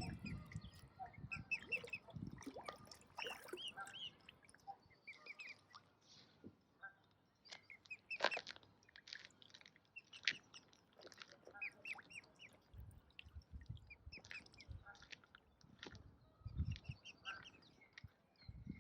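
Ducks quacking and calling on and off, mixed with runs of quick high chirps.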